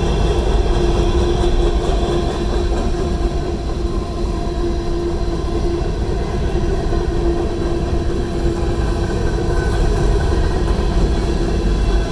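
Freight train cars rolling past: a steady rumble of wheels on rail, with a steady tone held throughout.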